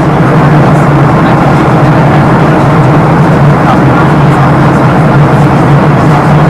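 Boeing 737-700 cabin noise heard from inside the cabin: the CFM56-7B engines and airflow make a loud, steady rush with a steady low hum underneath.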